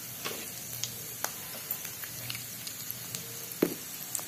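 Peanuts, cumin and mustard seeds frying in hot oil in a steel kadhai: a steady quiet sizzle with scattered small pops and crackles, one a little louder near the end. This is the tempering (phodni) stage, with the peanuts being fried until slightly crispy.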